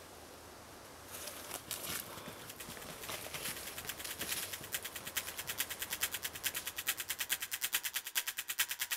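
A few scattered clicks, then a fast, even clicking, about ten a second, that sets in about three seconds in and grows steadily louder.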